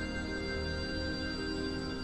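Slow instrumental background music with sustained, held notes.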